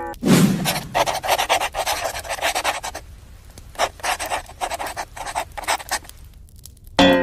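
A dog panting rapidly in quick short breaths, in two runs with a pause of about a second between them. A short chime-like tone comes in near the end.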